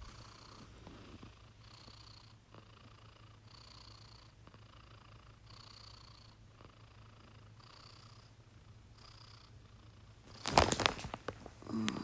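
A sleeping domestic cat snoring softly, one even breath about every second. About ten and a half seconds in there is a brief loud rustle.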